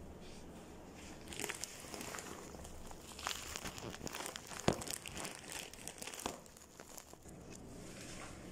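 Close handling noise as a phone is moved by rubber-gloved hands: rustling and crinkling with scattered knocks, the sharpest about four and a half seconds in, settling to quiet room tone near the end.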